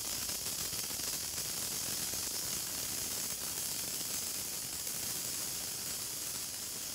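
Senko hanabi (Japanese incense sparkler) burning: a steady soft hiss with faint crackles as its glowing dross ball throws off branching sparks.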